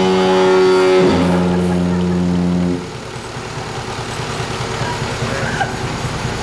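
Lighthouse diaphone foghorn giving one two-tone blast: a high tone that drops to a lower tone about a second in, then cuts off just under three seconds in. A steady, quieter machine hum carries on after it.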